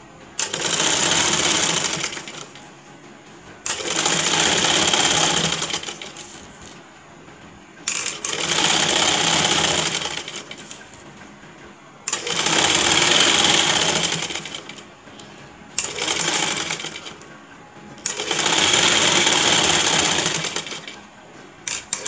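Domestic sewing machine stitching a lace border onto net fabric in six short runs of a few seconds each, stopping briefly between runs while the fabric is repositioned.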